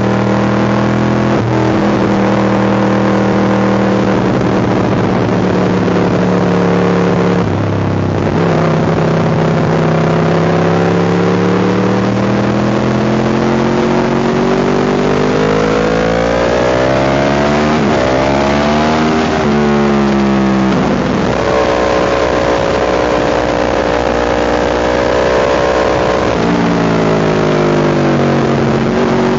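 Motorcycle engine running hard on a race circuit, its pitch climbing steadily through the revs and dropping suddenly at each gear change. A cluster of quick rising revs comes about two-thirds of the way through, with wind rushing over the microphone throughout.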